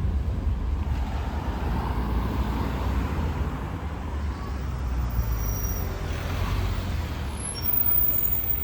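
Road traffic: a steady low rumble of motor vehicles passing on a city street, a little louder near the end.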